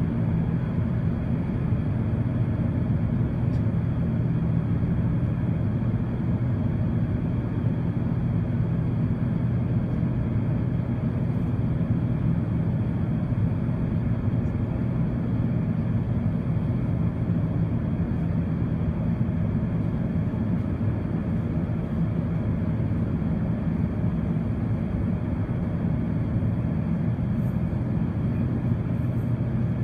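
Steady low rumble of an Airbus A380's engines heard inside the passenger cabin, with a hum of a few steady low tones under it.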